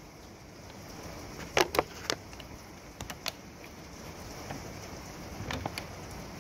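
Steady rain hiss with a few sharp taps scattered through it, the loudest ones about one and a half seconds in.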